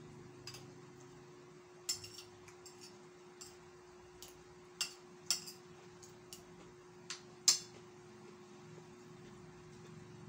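Eating at a table: a scatter of sharp clicks and clinks of a spoon against plates, the loudest about seven and a half seconds in, over a faint steady hum.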